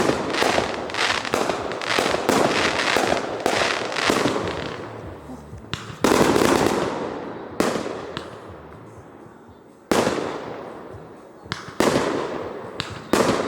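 Aerial fireworks exploding: a rapid string of bangs for the first four seconds or so, then single loud booms about six, eight, ten, twelve and thirteen seconds in, each fading out slowly.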